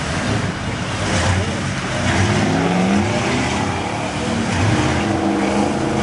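Pickup truck engines revving in a mud pit, the pitch rising and falling, with a rushing noise of tyres churning through mud.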